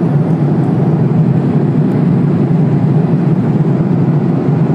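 Passenger aircraft cabin noise in flight: a steady low rushing drone of engines and airflow, even in level throughout.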